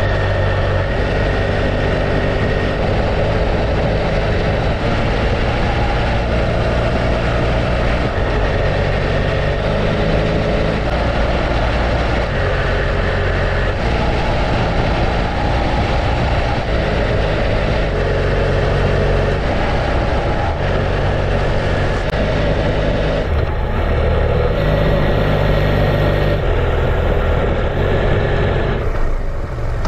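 BMW F800GS parallel-twin engine running steadily while riding, with wind and road noise. The engine note shifts in pitch several times.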